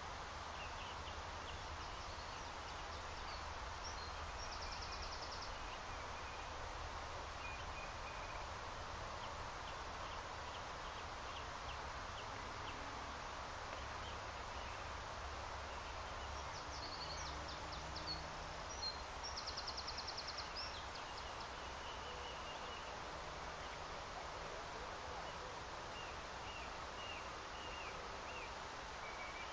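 Quiet riverbank ambience: a steady background hiss with small birds chirping at intervals. Two short, rapid high trills stand out, one about five seconds in and a louder one about twenty seconds in.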